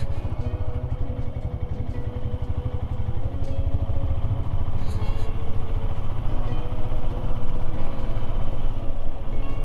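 Royal Enfield Himalayan's single-cylinder engine running steadily as the motorcycle is ridden, a dense low thudding of closely spaced firing pulses.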